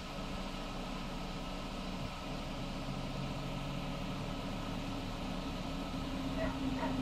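Idling car engine, a steady low hum with several constant low tones.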